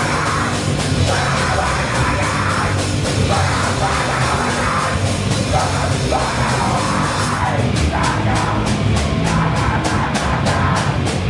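Live heavy rock band playing loud, with shouted vocals in short phrases over drums. From about two-thirds through, the drummer hits the cymbals in a fast, even run.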